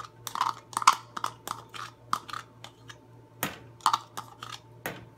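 Spoon scooping thick curd out of a container and tapping it off into a stainless-steel mixer-grinder jar: a string of short, irregular clicks and taps, the sharpest about a second in, near the middle and near the end.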